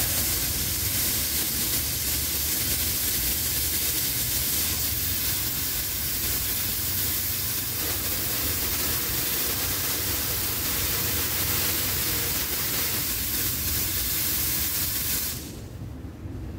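Espresso machine steam wand venting steam: a loud, steady hiss that cuts off about fifteen seconds in.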